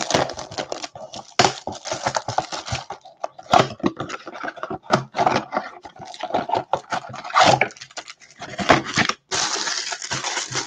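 Clear plastic shrink-wrap being torn and crinkled off a cardboard baseball-card blaster box, then the box opened and the foil packs handled: a dense, irregular crackling and rustling with sharp clicks.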